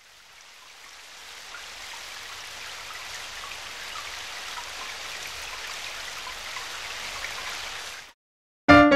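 Steady rain with scattered drops, fading in at the start and cutting off suddenly about eight seconds in; piano music begins just before the end.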